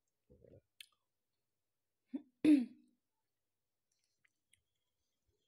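A single short, sharp throat sound from a person, a sudden burst with a brief falling pitch, about two and a half seconds in, just after a faint click.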